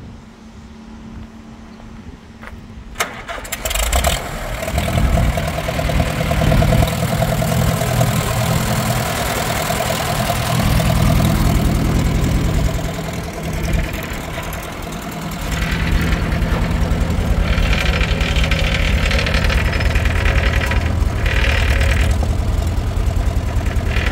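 Farmall H tractor's four-cylinder engine starting: a click about three seconds in, then the engine fires about a second later. It settles into a steady run, which grows louder about halfway through.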